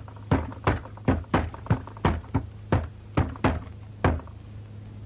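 Hands and forearms striking a wooden Wing Chun dummy (muk yan jong): a quick run of about a dozen sharp wooden knocks, roughly three a second, stopping a little after four seconds in. A steady low hum runs underneath.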